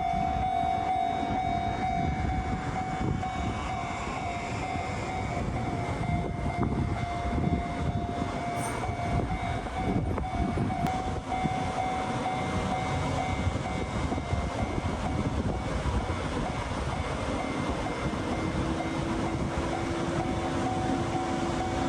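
Japanese level-crossing warning bell ringing steadily over the rumble of a passing train. A second, lower steady tone joins near the end.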